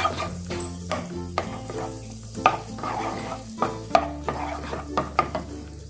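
Butter melting and sizzling in a hot nonstick wok while a wooden spatula stirs and scrapes it, with sharp knocks of the spatula against the pan, the loudest about two and a half and four seconds in.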